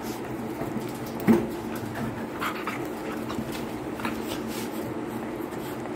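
A dog gives one short, loud bark about a second in, followed by a few light clicks and knocks, over a steady low hum.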